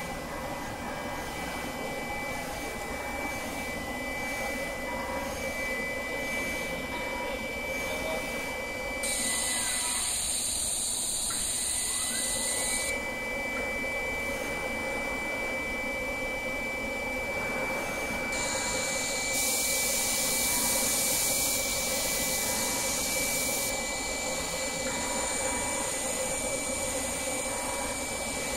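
An automatic FPC die-cutting machine with its loader and unloader running: a steady machine whir with a thin high whine. Twice, a high air hiss cuts in for a few seconds, about a third of the way in and again past halfway.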